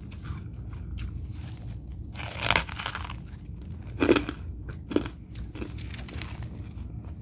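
Freezer frost being crunched and chewed in the mouth: a few crunches, the loudest about two and a half and four seconds in, over a steady low hum.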